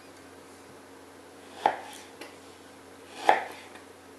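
Kitchen knife slicing through frozen pork back fat onto a cutting board: two cuts, about a second and a half apart.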